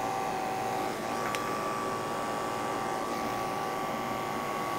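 Five-speed electric pet clipper running with a steady hum as it shaves fur from a cat's rear end in a sanitary trim.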